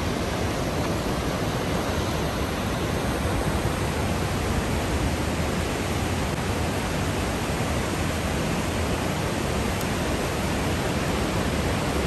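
Steady rush of a mountain stream in spate, a muddy torrent pouring over rocks, swollen after a cloudburst.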